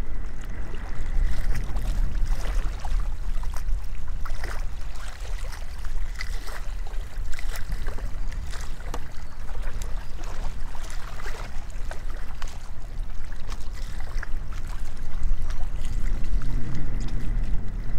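Water sloshing and splashing at the lake edge as a keepnet is drawn out and roach are released, with scattered short splashes and drips over a steady low rumble of wind on the microphone.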